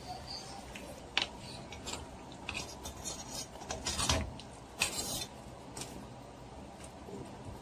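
Metal ladle and fork clinking and scraping against a stainless steel pot of broth as the vegetables and beef shank are moved about: a scatter of light knocks and scrapes, the sharpest about a second in and around four to five seconds in.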